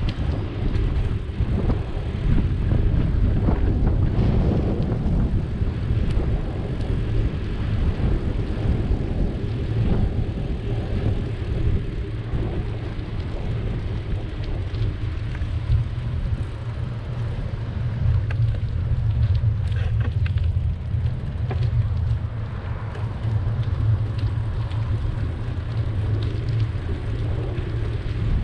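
Wind buffeting the microphone of a camera on a moving bicycle, together with the tyres rolling over rough asphalt: a steady deep rumble that does not let up.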